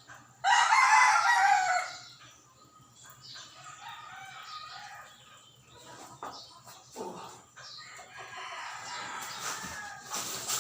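A loud animal call lasting about a second and a half near the start, followed by quieter scattered sounds.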